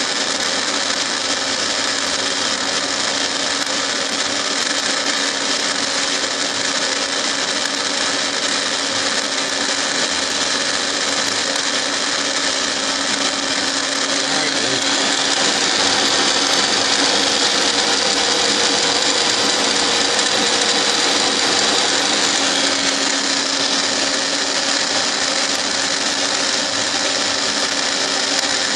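Milling machine running steadily with its cutter cutting a helical groove into a worm-shaped workpiece that a dividing head turns as the table is fed by hand. The cutting noise gets a little louder about halfway through.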